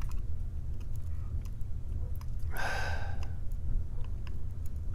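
A long sigh about two and a half seconds in, over a steady low hum, with scattered faint light clicks.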